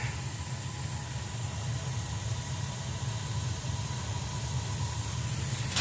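Small Burnham gas boiler running with its burner lit: a steady low rumble with hiss. A brief metallic clatter starts at the very end.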